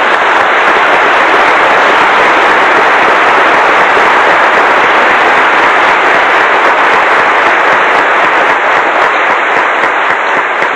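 Audience applauding in a long, steady round that eases slightly near the end.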